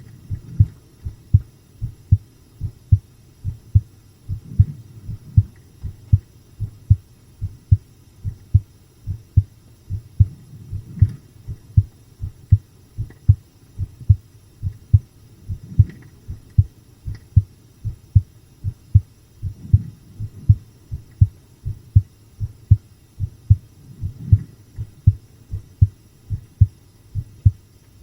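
Human heartbeat picked up close against the chest: a steady run of low lub-dub double thumps, beating strongly rather than fast.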